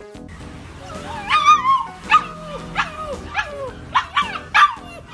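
A puppy howling in a quick series of short, yelping calls, each sliding down in pitch, starting about a second in, with background music underneath.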